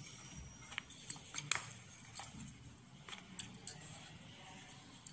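Irregular light clicks and clinks as hands fold and flour methi paratha dough on a glass plate.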